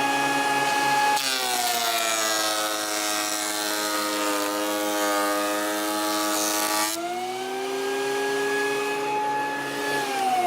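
Ridgid thickness planer's motor running with a high whine; about a second in a board enters and is planed, the motor's pitch dropping under the load while the cutterhead chews the wood. Around seven seconds the board clears the blades and the motor speeds back up, then its pitch starts to fall near the end. The board feeds through on its own, the feed rollers freshly cleaned.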